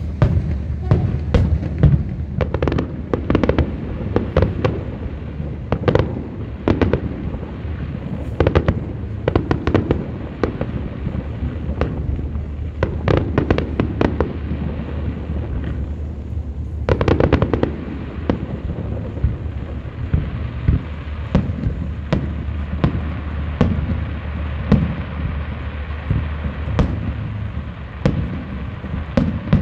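Aerial fireworks bursting in quick succession: many sharp bangs over a continuous low rumble, with a dense cluster of bangs about seventeen seconds in.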